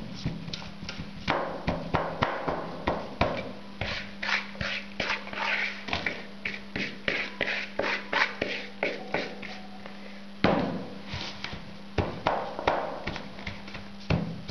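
Repeated light taps and scrapes of a buttered biscuit-crumb cheesecake base being spread and pressed down into a dish.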